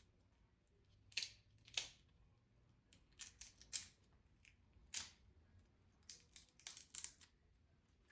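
Shells being pulled off large raw shrimp by hand: a scattering of faint, crisp cracks and snaps, a few at a time, with short pauses between.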